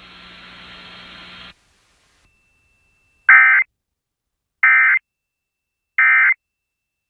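Emergency Alert System end-of-message signal: three short, loud bursts of digital data screech, just over a second apart, closing the broadcast severe thunderstorm warning. A faint broadcast hum cuts off before them.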